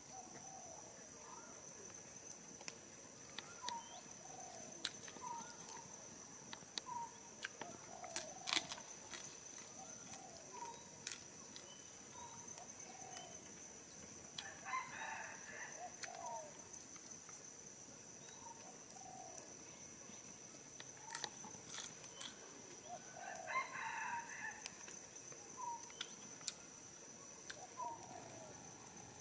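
Forest ambience: a cock crows twice, about halfway through and again near the end, over a steady high insect drone. Short bird calls repeat about once a second, and the campfire crackles.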